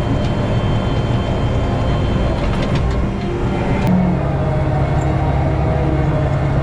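John Deere 450H crawler dozer's diesel engine running steadily, its engine note shifting a little over halfway through, with a few faint clicks.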